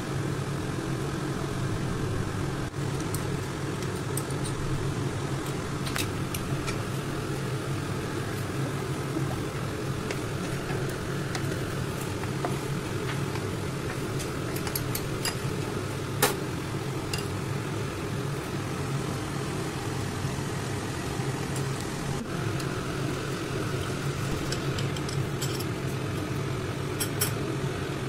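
Steady low mechanical hum of a running motor, with a few light clicks, the sharpest about halfway through.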